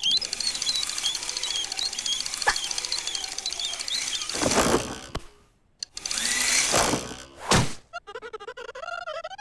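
A cartoon fly's buzz: a fast, buzzy whirr with a wavering pitch as the fly hovers and darts about. It is followed by a couple of noisy swishes and a sharp hit, and near the end by a short squeak that wavers up and down.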